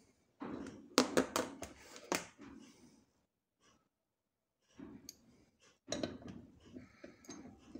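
Small steel parts being handled and fitted together, a C-clamp and nut being mounted on a homemade ball vise: a quick run of sharp metallic clicks and knocks about a second in, then after a short silence more light clicks and handling noise.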